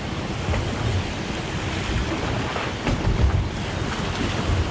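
Wind buffeting the microphone over water lapping and slapping against a boat's hull, a steady rumbling wash.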